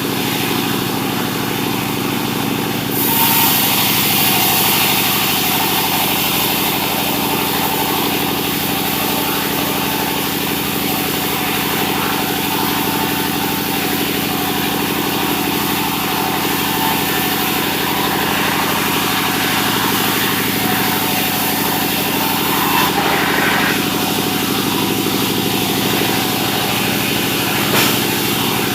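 Engine-driven sawmill running steadily. A louder, higher noise joins about three seconds in and drops away about twenty-three seconds in.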